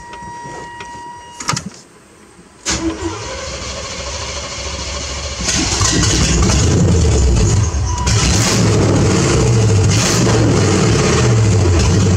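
Chevrolet pickup's 350 V8 started with its exhaust removed, running open-exhaust. A warning chime tone sounds at first, the engine cranks and catches about three seconds in, then runs louder from about five seconds in with a pulsing rumble as it is revved.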